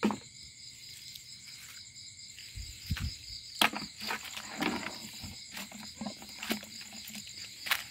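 Insects chirring steadily in a high, continuous chorus. Dry leaf litter rustles and crackles underfoot, with a cluster of sharp crackles a little past the middle.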